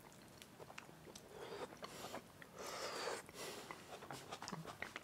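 Faint chewing of baked chicken and onion, with light clicks of a fork against the baking tin.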